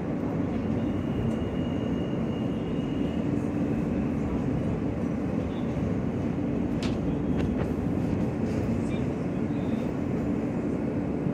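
Steady running noise of a New York City subway train heard from inside the car, a low even rumble of wheels and motors on the track. A few short sharp clicks come about seven seconds in.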